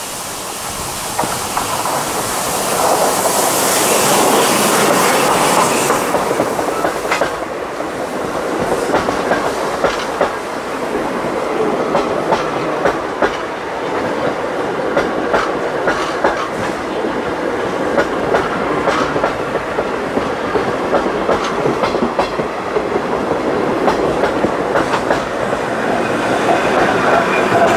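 Steam-hauled passenger train passing close by: a hissing rush as the steam locomotive goes past, then the coaches' wheels clicking steadily over the rail joints, growing louder again near the end as the electric locomotive at the rear passes.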